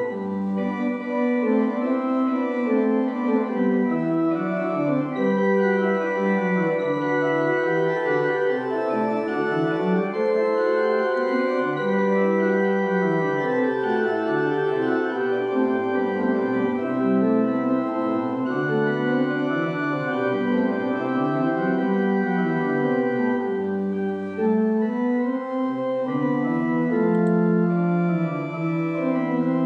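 Organ music: sustained chords held over a low line that moves slowly up and down in steps.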